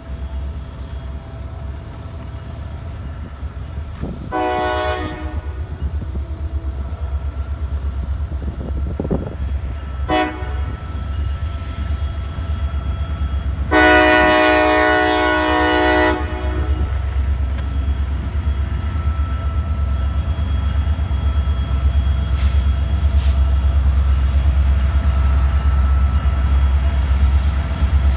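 CSX freight train's diesel locomotives approaching with a steady low rumble that grows louder as the train arrives. The locomotive horn sounds three times: a short blast about four seconds in, a brief one about ten seconds in, and a long, loud blast around fourteen seconds in.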